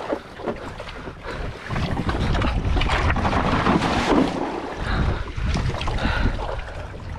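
Water splashing and sloshing around a kayak, with wind buffeting the microphone in a low rumble from about two seconds in.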